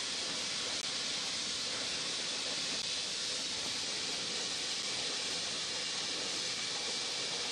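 Steady, even hiss of airport apron noise with a faint hum under it, unchanging throughout.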